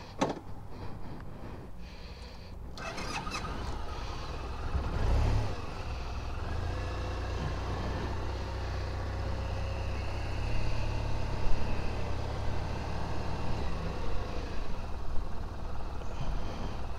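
A motor vehicle's engine running steadily, swelling about five seconds in and easing near the end, after a few short clicks at the start.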